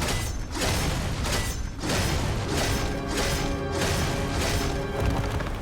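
Dramatic action score with sustained tones and repeated heavy percussive hits.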